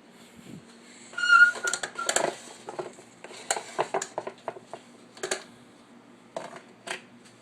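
Metallic clattering: a run of clicks and knocks with one brief ringing clang about a second in, over a faint steady hum.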